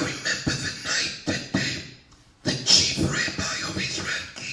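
A man's voice close to a handheld microphone, in short uneven phrases with a harsh, crackly edge.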